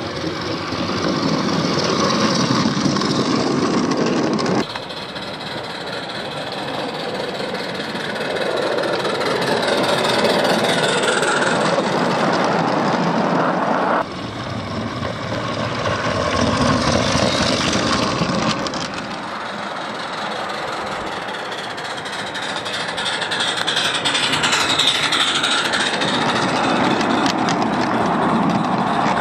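Small-scale 16mm garden railway trains running on the outdoor track, their wheels rumbling and clattering. The sound swells and fades as trains pass close by, with abrupt changes where the shots are cut.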